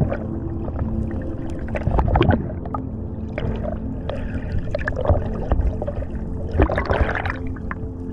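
Underwater sound picked up by a freediver's camera: muffled water rushing and bubbling with scattered clicks and knocks, louder in swells about two seconds in and again near the end, over a steady low hum.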